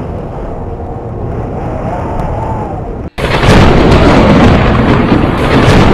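Cinematic intro sound effect: a low rumble drops out for an instant about halfway, then a much louder explosion-like rush starts at once and holds to the end.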